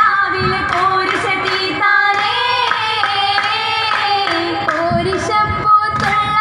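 A group of girls singing a Mappila song in unison, accompanied by rhythmic hand claps, as in an Oppana dance.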